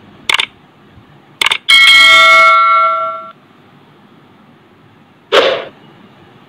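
Subscribe-button animation sound effects: two short mouse clicks about a second apart, then a bright notification-bell ding that rings for about a second and a half as it fades. A short noisy burst follows near the end.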